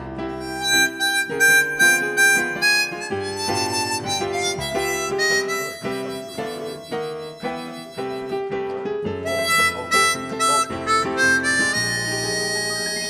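Harmonica playing a melodic solo over a keyboard and a low bass line, an instrumental break in a jazz-standard song.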